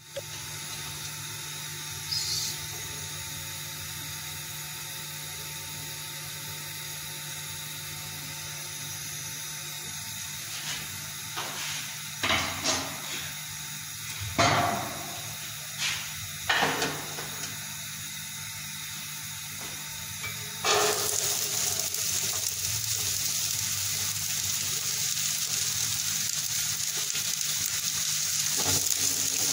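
A steady hiss with a few short knocks, then about two-thirds of the way through chopped red onions hit hot oil in a pot and start sizzling loudly. The frying goes on steadily to the end.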